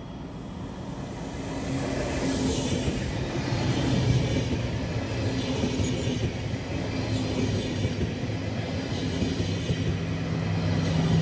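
SBB Re 460 electric locomotive and a long rake of double-deck passenger coaches running past on the rails, a steady rumble of wheels on track with a low hum. It grows louder over the first two seconds as the locomotive comes level, with a high hiss during the first few seconds.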